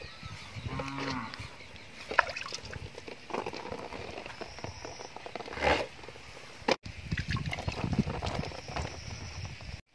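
A large knife cutting and trimming young jackfruit by hand, with scattered knocks and scraping. The loudest is a sharp burst a little past the middle. A short pitched animal call comes about a second in.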